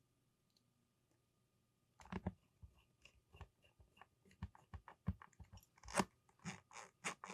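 Near silence, then about two seconds in an irregular run of small clicks, taps and crunchy rustles begins: hands handling and pressing on the camera body during reassembly.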